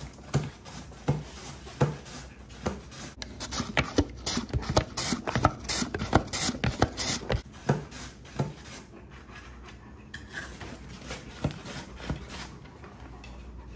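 An apple being sliced on a plastic mandoline slicer: short rasping strokes about every 0.7 s, each with a dull knock. In the middle come about four seconds of rapid, sharp clicks and smacks close to the microphone, which are the loudest part.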